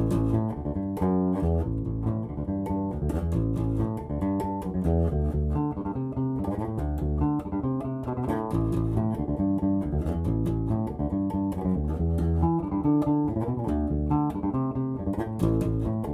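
Five-string electric bass with Lace Alumitone pickups playing a plucked riff of quick, continuous notes, with the tone control opened up for a brighter voicing.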